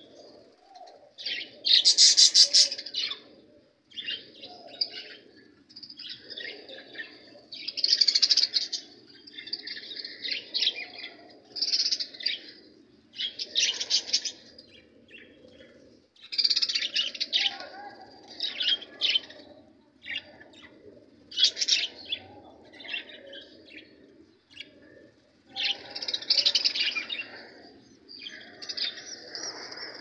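A cageful of budgerigars chattering and chirping, the high chirps coming in bursts of a second or two, one after another.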